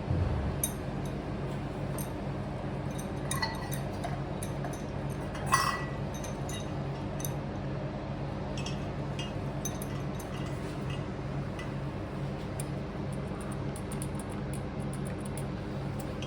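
Small metal parts and tools clinking and tapping on and off, with one sharper clink about five and a half seconds in, over a steady low hum.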